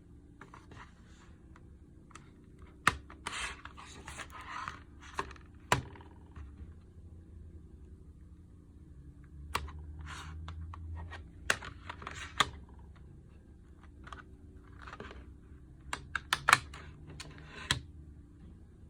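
A CD being unwrapped and handled: crinkling and rustling of plastic wrap in several bursts, with sharp clicks and taps of the plastic case.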